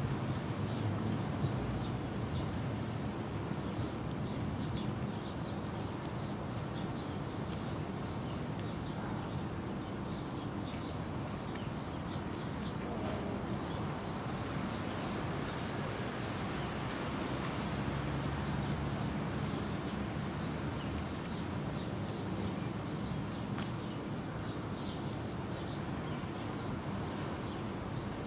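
Small birds chirping in short, high, repeated notes over a steady low background noise.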